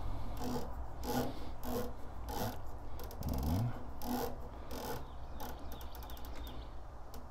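Riflescope turret being turned by hand, its detents clicking in a run of short rasping spurts, a few per second.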